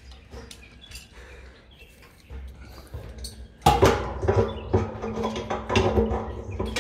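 Pliers clicking and scraping against a brass float valve as it is tightened onto a pipe inside a stainless steel water tank. Faint clicks at first; from about three and a half seconds in, a louder, denser metallic clatter and grinding.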